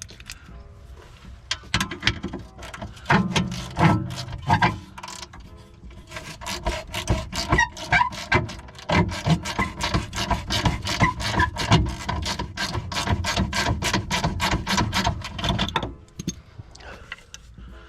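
Hand ratchet wrench clicking in quick repeated strokes while turning a 14 mm suspension bolt, with a few heavier knocks of metal on metal early on; the clicking stops about two seconds before the end.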